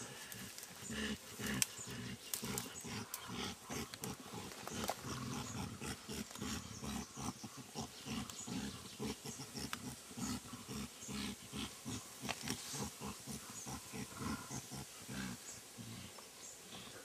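Mountain gorillas wrestling in the undergrowth, giving a steady run of short, low, pulsed vocal sounds, about four or five a second, with the sharp snapping and rustling of leaves and stems under them.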